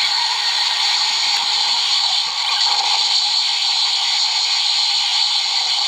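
DX Ark Driver Zero toy belt's speaker playing a steady rushing hiss, its sound effect for Ark generating a weapon, thin with no low end. The hiss shifts slightly in tone near the end.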